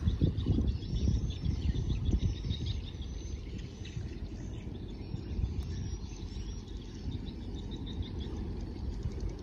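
Low, uneven rumble of wind on the microphone, with faint high-pitched chirping in short runs.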